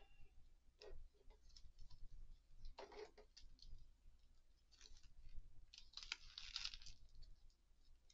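Faint scattered clicks and plastic rustles from a plastic action figure and its parts being handled, with a longer rustle of clear plastic packaging about six seconds in.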